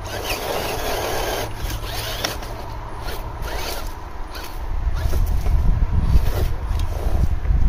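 Radio-controlled truck's electric motor whirring as its tyres scrabble and knock over loose stones and bricks. It grows louder in the last couple of seconds as the truck tips over onto its roof.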